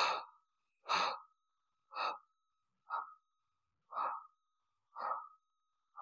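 A man panting heavily, about one breath a second, with a faint steady high tone running beneath the breaths.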